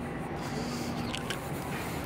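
Outdoor street ambience: a steady low hum with an even background hiss, and a few faint clicks about a second in.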